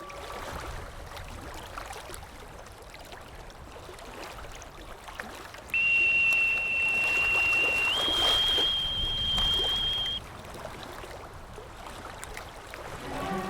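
A boatswain's pipe sounds one long shrill note over a steady wash of water. About halfway through it starts on a lower pitch, steps up to a higher pitch about two seconds later, and stops after about four and a half seconds.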